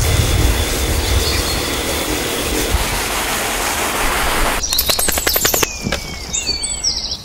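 Water hissing steadily from the spray gun of a Kärcher OC3 portable outdoor cleaner for about four and a half seconds. Then comes about a second of rapid flapping slaps from a wet dog shaking itself off, followed by birds chirping.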